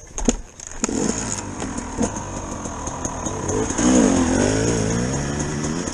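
Enduro dirt bike's engine, heard from on the bike, pulling away and revving up a rocky trail, its pitch rising and falling with the throttle. A few sharp knocks come in the first second as it sets off.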